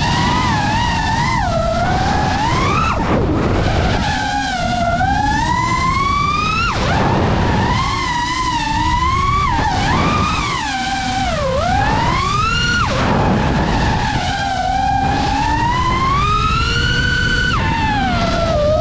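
FPV racing quadcopter's brushless motors whining under hard throttle, the pitch sweeping up and down every second or two as the throttle changes, over rushing propeller and wind noise.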